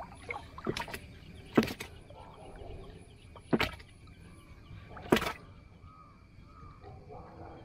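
Wooden paddle knocking against the side of a wooden canoe as it is paddled: four sharp knocks, unevenly spaced over about five seconds, with faint water noise between them.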